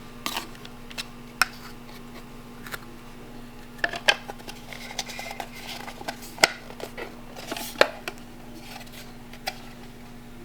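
Scattered sharp clicks and light clinks of small hard parts being handled while a fog light housing and its screws are worked on by hand, over a low steady hum.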